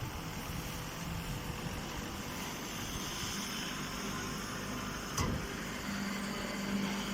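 Steady mechanical running noise from a machine, with a sharp click about five seconds in and a low, even hum joining near the end.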